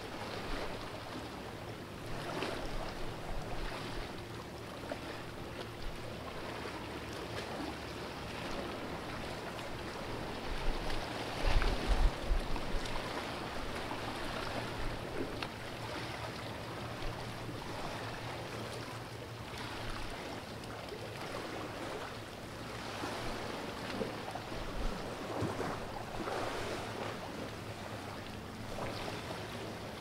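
Calm sea water lapping and sloshing against rocks in a narrow gully, coming in irregular surges, with a louder low thump about halfway through.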